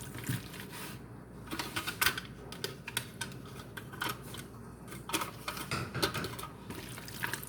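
Irregular light clicks and taps of dishes and utensils being handled on a kitchen counter.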